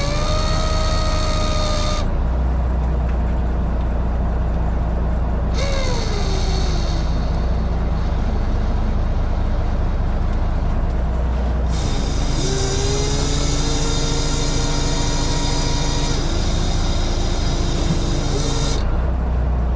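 Heavy machinery engine running steadily, joined three times by a whine that bends up and down in pitch with a high hiss over it, the longest stretch lasting about seven seconds near the end.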